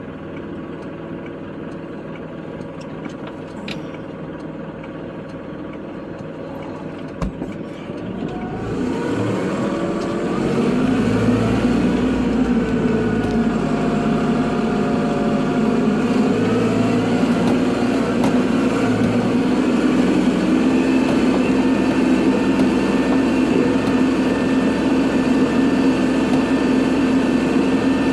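Kubota tractor's diesel engine running at a low, steady speed, then revving up about nine seconds in and running louder and steady while plowing snow. A single sharp click is heard shortly before it revs up.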